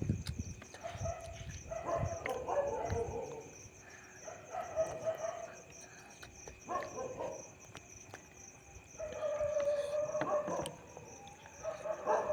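A dog whining in a run of drawn-out, pitched calls, each about a second long, with short gaps between them. A faint, steady high-pitched buzz, like insects, runs behind the calls.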